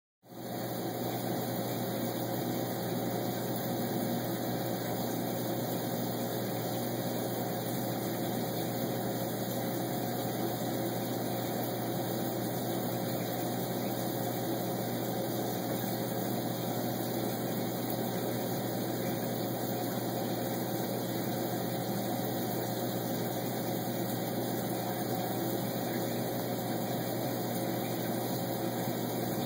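Steady, unchanging mechanical hum with one constant tone in it, such as a small motor running.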